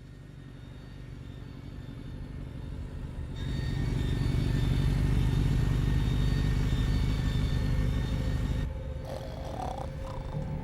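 Low, steady mechanical rumble that builds gradually, jumps louder about three seconds in, then drops back abruptly near the end.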